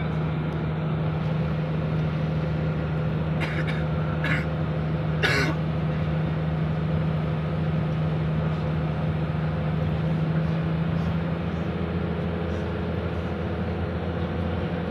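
Steady engine and road drone of a large vehicle on the move, heard from inside its cab, with a low hum throughout. A few short, sharp noises come about four and five seconds in.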